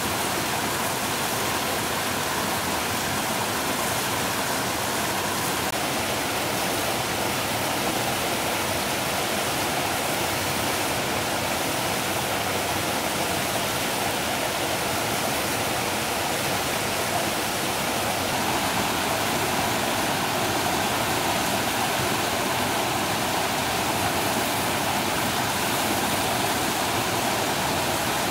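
Steady rushing of flowing river water, an even noise with no breaks.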